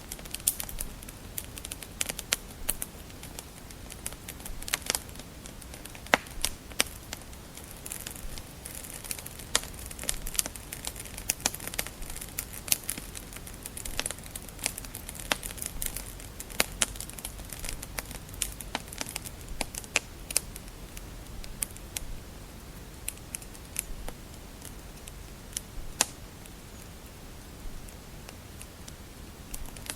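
Wood fire crackling and popping in a fireplace: irregular sharp pops and snaps, thickest in the middle stretch, over a low steady hiss of burning.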